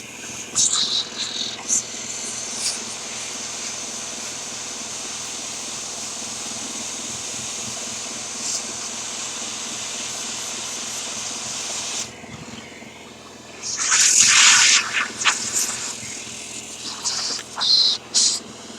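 Vacuum running with a steady airflow hiss over a low motor hum as metal filings and dirt are cleaned off a car radio chassis. About twelve seconds in the hiss drops away, then come a couple of seconds of loud rushing bursts, followed by scattered short scrapes and clicks.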